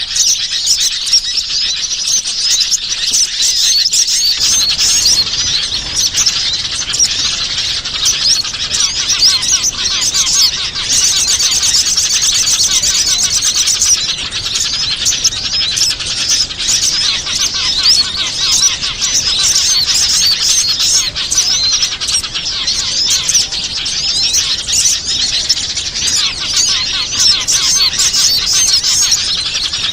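Bird-luring recording of many small wild birds chirping and twittering at once in a dense, unbroken chorus. Around the middle, a fast buzzy trill rises above the chirps for a few seconds.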